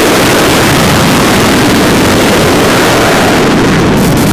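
F/A-18 jet engines running, a loud steady roar that settles lower in pitch toward the end as the highest hiss fades about three and a half seconds in.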